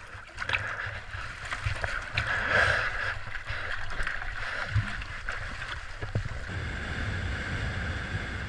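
Water sloshing and splashing around the hulls of a Tornado catamaran, with a few knocks and wind buffeting the microphone; a louder rush of water comes about two and a half seconds in.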